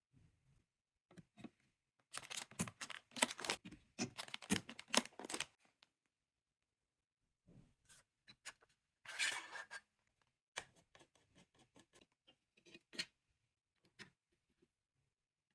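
Hands handling computer parts and packaging: a dense run of small clicks, scrapes and rustles for a few seconds, a brief rustling burst a little past the middle, then scattered clicks.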